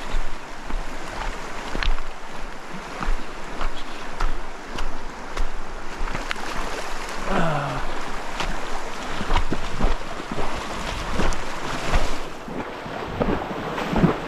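Shallow creek water rushing over a rocky bed, with irregular splashes and knocks as someone wades through it, and wind buffeting the microphone.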